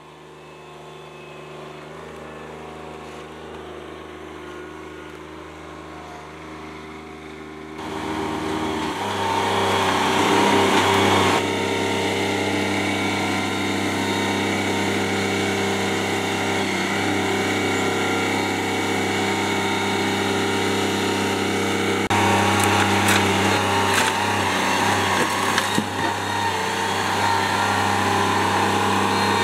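John Deere compact tractor's diesel engine running steadily under loader work, getting louder about a quarter of the way in. A few sharp knocks of logs come about three-quarters of the way through.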